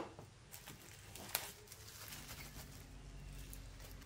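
Faint handling sounds of small items being picked up: a few light clicks, one sharper click about a second and a half in, and a faint low hum later on.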